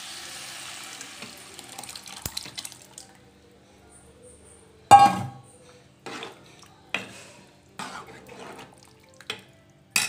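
Vegetables sizzling in oil in a metal cooking pot, the sizzle fading over the first few seconds as cooked toor dal is poured in. Then a steel ladle knocks against the pot several times while stirring, with the loudest, ringing clank about five seconds in.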